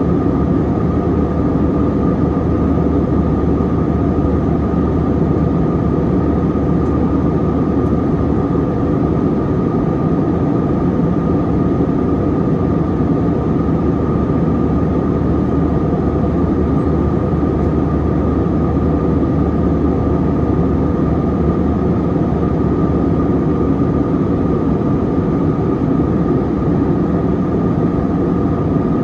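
Steady jet engine and airflow noise inside the cabin of an Airbus A321-200 in flight: a constant low rumble with a steady whine running over it.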